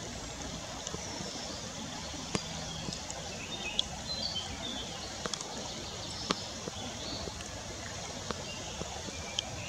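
River water rushing steadily over shallow rocks, with small birds chirping in the background and a few sharp clicks.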